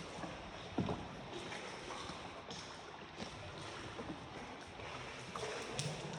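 Small boat moving on water, with steady water noise and scattered knocks and splashes, the loudest about a second in.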